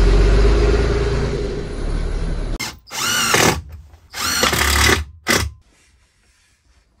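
A low rumble fades away over the first two and a half seconds. Then a cordless drill runs in three short bursts, its motor whine rising and falling, as it drives into a wooden panel. The last burst is the briefest.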